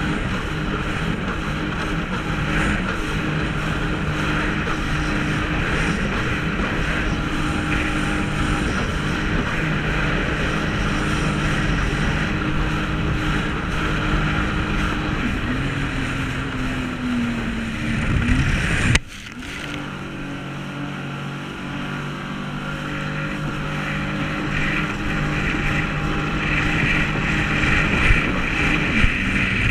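Sea-Doo jet ski engine running under way, with rushing water and wind over the craft. Just before two-thirds of the way through, the engine note sags, then cuts abruptly to a quieter run that builds up again toward the end.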